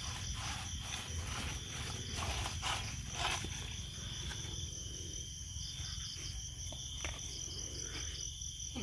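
Crickets chirping in a steady, pulsing night chorus, with a few short rustling and scraping sounds in the first three seconds or so.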